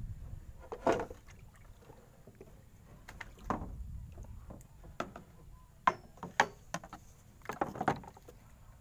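Water splashing and sloshing around a small boat on the river: a handful of short, separate splashes and light knocks, the loudest about a second in and in the last three seconds.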